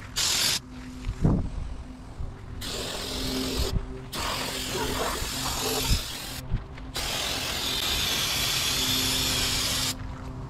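Pressure washer spraying: a steady spray hiss over a low pump hum. Both stop and restart several times as the trigger is let go and squeezed again.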